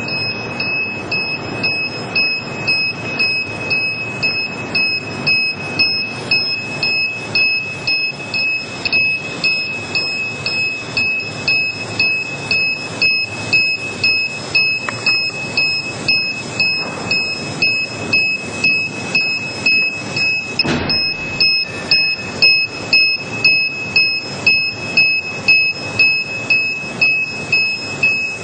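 A toy train built from electronic building-block modules gives off a steady, high-pitched electronic buzzer tone with a rhythmic chugging hiss about twice a second. There is a single knock about two-thirds of the way through.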